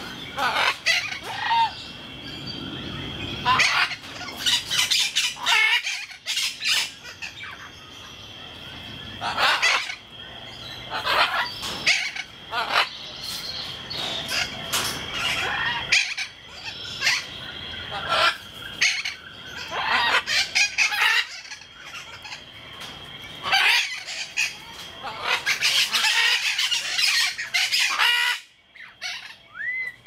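Yellow-crowned amazon parrot calling: a long run of loud calls coming in bursts with short pauses between them.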